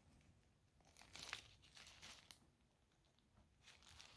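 Faint crinkling and rustling of a mesh organza bag holding perfume sample vials in paper sleeves as it is handled. It comes in a few short bursts, with a small sharp click about two seconds in.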